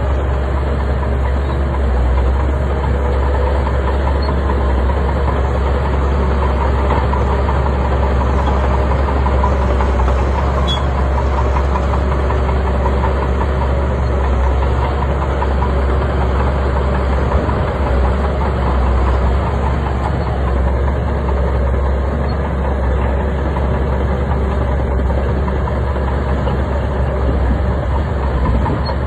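Shantui bulldozer's diesel engine running steadily, a heavy low-pitched drone with no break.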